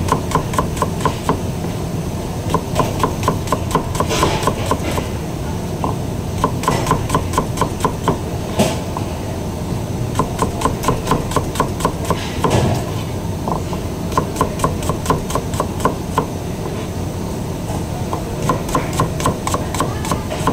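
Chef's knife slicing a red onion on a cutting board: quick, even knocks of the blade against the board, about five a second, in runs with short pauses between them. A steady low hum runs underneath.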